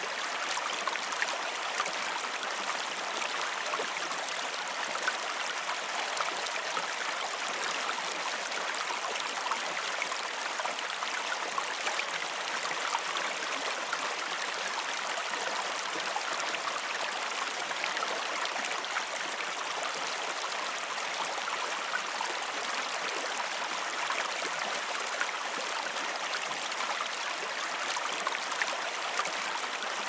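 River water rushing over rocks through a small rapid: a steady, even splashing hiss with no deep rumble.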